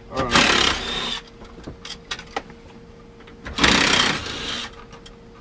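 Yellow DeWalt cordless drill-driver spinning in two short bursts about three seconds apart, driving out screws under the steering column of a Ford F-150 dash.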